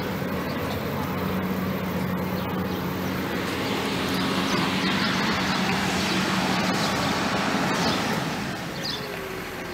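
Steady rumble of a passing vehicle, with a low steady hum under it at first, swelling in the middle and fading near the end.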